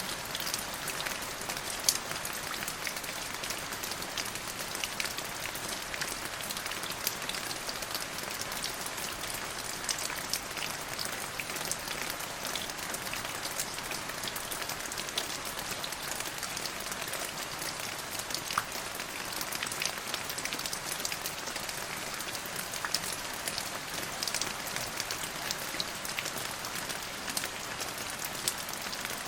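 Steady rain: a constant hiss with many individual drops ticking sharply through it.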